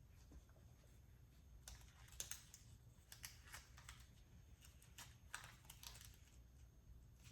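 Faint, scattered clicks and light taps of small RC kit parts, ball bearings and plastic transmission-case pieces, being picked up and handled, over a low hum.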